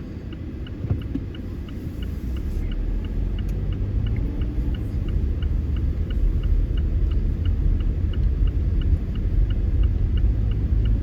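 Car interior road and engine rumble, growing steadily louder as the car picks up speed. Over it, a turn-signal indicator ticks evenly at about two to three ticks a second.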